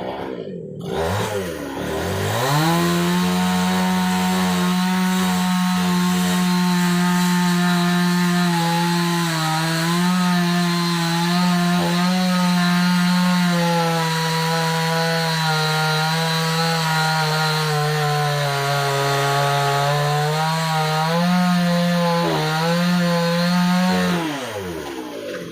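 Chainsaw engine revved up to full throttle and held there for about twenty seconds, its pitch sagging slightly now and then as it cuts wood, then dropping back near the end.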